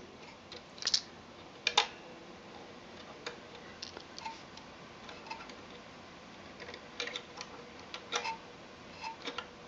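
Small, sharp clicks and taps from a cuckoo clock's brass movement being handled by fingers. They come irregularly, about ten of them, with a cluster near the end.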